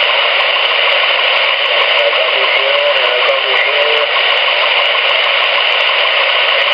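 Steady static hiss from a CB radio's speaker on 27.455 MHz sideband, cut off above and below like a narrow radio channel. A weak, garbled voice surfaces faintly under the noise about halfway through.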